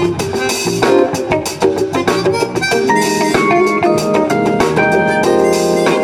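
Live funk band jamming: drum kit playing a steady beat under guitar and other instruments.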